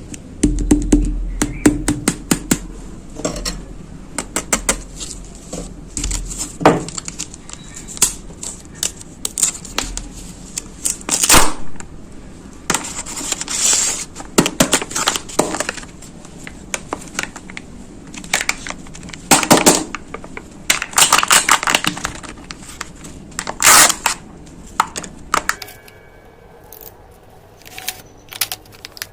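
Knife cutting through packed kinetic sand: repeated crisp crunching and crackling strokes, some short ticks and some longer crunches of about a second, with a quieter stretch near the end.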